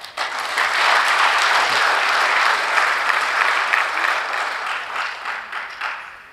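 Audience applauding: a large seated crowd clapping, rising quickly, holding for about five seconds, then dying away near the end.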